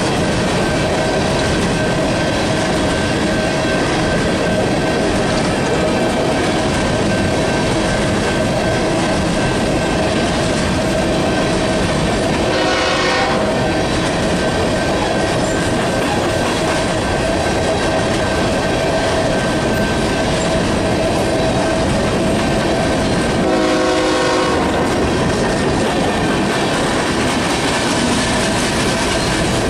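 Coal train's hopper cars rolling past close by: a steady rumble and clatter of steel wheels on rail with a steady ringing note. An approaching diesel locomotive's horn sounds a short blast about halfway through and a longer one about 24 seconds in.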